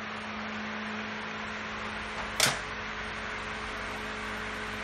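Steady low hum with one sharp click about halfway through, from hand tools being handled at a motorcycle drive chain.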